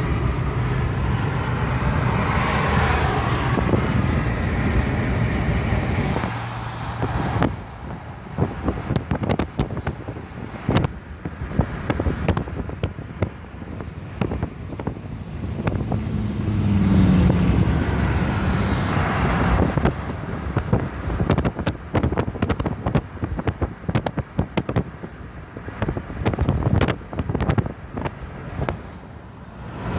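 Car driving along, with steady road noise. After about six seconds wind starts buffeting the microphone in crackling gusts, with a louder swell of passing road noise around the middle.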